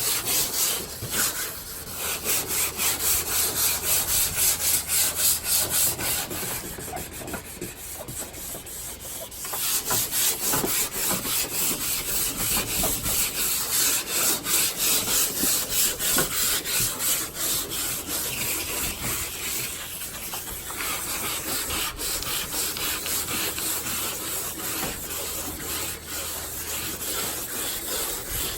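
Hand sanding with 400-grit wet sandpaper on a carbon fiber hood, rubbed back and forth in quick, rhythmic strokes, several a second, scrubbing off the old, sun-damaged clear coat. The strokes ease off briefly about seven seconds in.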